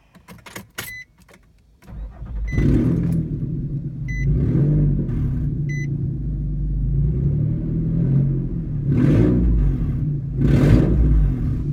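A 2011 Nissan Xterra making an odd, loud low droning noise that starts about two seconds in and runs steadily, swelling twice near the end. It is the noise that has persisted since the overdrive button was pressed to accelerate at highway speed. A few short beeps sound over it early on.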